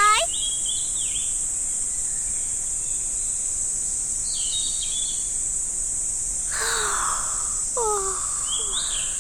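A steady, high-pitched insect drone, with short bird chirps and a few descending pitched calls coming in several times.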